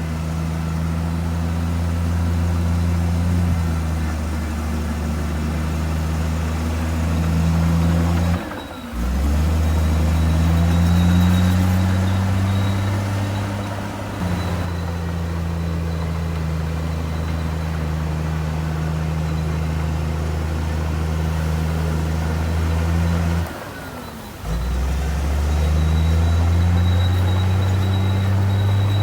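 Diesel engine of a Komatsu D58E1 crawler bulldozer running steadily. The sound breaks off abruptly twice, about nine and twenty-four seconds in, and the engine pitch climbs a little each time it comes back.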